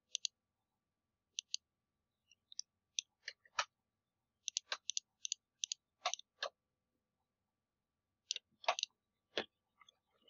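Computer mouse clicking: many short, sharp clicks at an irregular pace, often in quick pairs like a press and release, with a few louder, heavier clicks among them.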